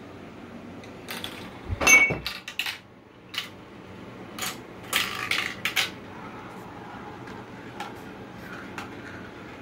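Marbles clicking and clattering along a translucent plastic marble run track, in a run of irregular clinks, the loudest a short ringing clink about two seconds in, with scattered lighter clicks near the end.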